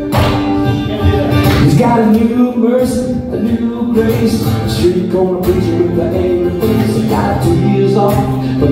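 Steel-string acoustic guitar strummed steadily, with a man singing along into a microphone from about two seconds in.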